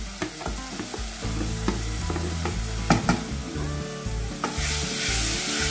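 Freshly washed quinoa sizzling in hot oil with browned onion and garlic in a metal pot, stirred with a wooden spoon that knocks against the pot a few times. The sizzle grows louder near the end.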